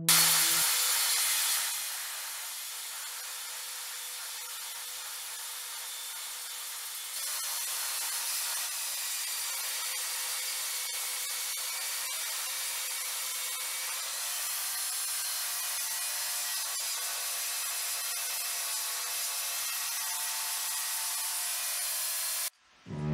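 Cordless drill spinning a square wooden stick through a dowel-rounding jig, the jig's cutter shaving the wood round: a steady whir with a rasping hiss of wood being cut, cutting off suddenly near the end.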